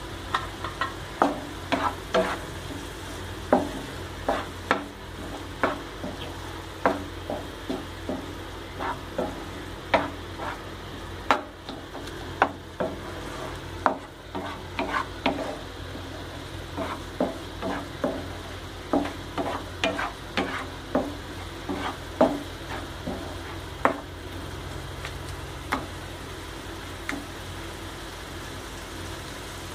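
Spatula stirring and mashing elephant foot yam masiyal in a nonstick frying pan, with repeated scrapes and taps against the pan, roughly one or two a second, thinning out near the end. A low steady hum runs underneath.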